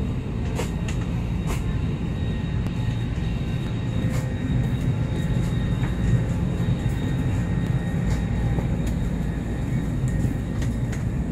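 Steady low hum inside a parked Airbus A321neo's cabin, with scattered short clicks and knocks as passengers get off.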